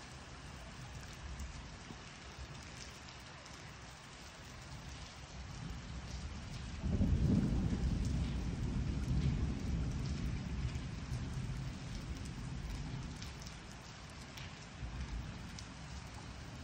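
Steady rain during a thunderstorm, with a deep roll of thunder. The thunder swells about six seconds in, breaks in loudly near seven seconds and rumbles away over the following several seconds.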